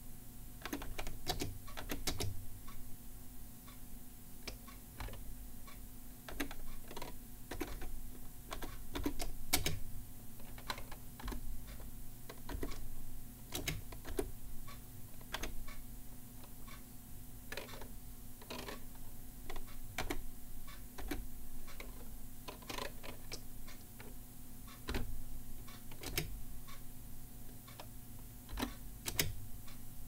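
Keys of a SafeType vertical keyboard being pressed slowly, one at a time, as irregular, isolated keystroke clicks with uneven gaps. This is halting, hunt-and-peck typing on a first attempt at the keyboard.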